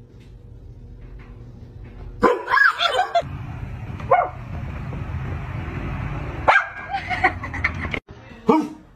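A dog barking and yipping in several short bursts, with a steady low noise between them in the middle.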